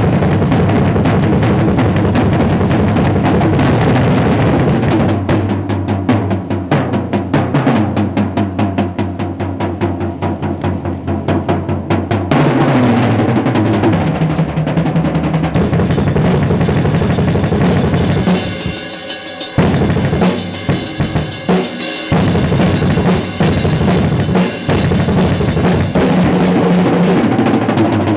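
Acoustic drum kit played in a fast solo: rapid bass drum strokes under snare and tom rolls. Cymbal wash grows stronger in the second half, with a short drop in intensity about two-thirds of the way through.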